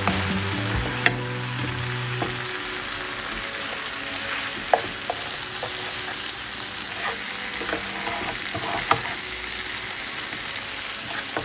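Marinated chicken legs sizzling in oil in a non-stick frying pan, with a spatula scraping through the sauce and a few sharp taps of the spatula against the pan.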